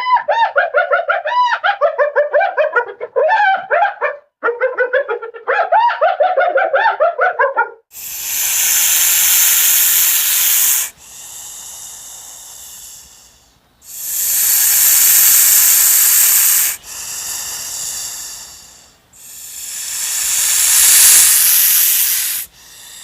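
Viperwolf creature sound effect: about eight seconds of rapid chattering, chirping calls. Then come three long, loud hisses, each followed by a quieter, breathy hiss.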